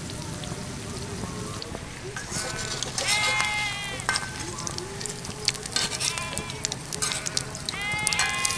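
Hot oil sizzling in a miniature wok, with metal clinks and crackles as the fried fritters are scooped out with a small metal slotted ladle. An animal bleats twice in the background, about three seconds in and near the end.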